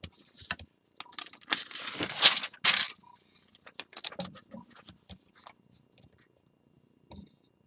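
Paper page of a spiral notebook being turned by hand: a rustle for about two seconds, then a few small clicks and taps as the notebook is handled.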